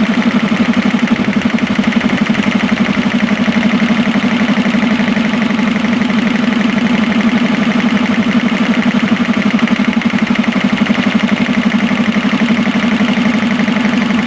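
One electric motor running two belt-driven air compressors together, a steady fast-pulsing hum with no change in speed.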